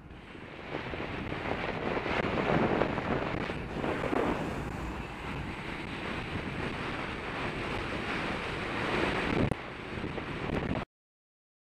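Wind rushing over the microphone of a camera on a moving bicycle, with road noise, swelling a few times; the sound cuts off suddenly near the end.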